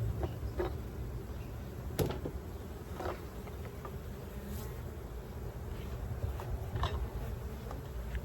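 A swarm of honeybees buzzing steadily around an opened hive box, the colony a little agitated. Several short knocks, about two and three seconds in and again near the end, come from the wooden hive box being handled.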